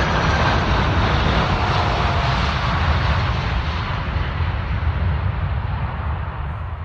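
Jet engines of a Boeing 747 passing by: a loud rushing noise with faint whines sliding down in pitch, slowly fading as the aircraft moves away.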